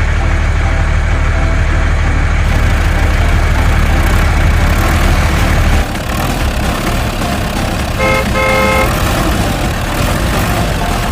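A vehicle engine runs with a steady low rumble that turns rougher and choppier about six seconds in. Two short horn toots sound about eight seconds in, the second one longer.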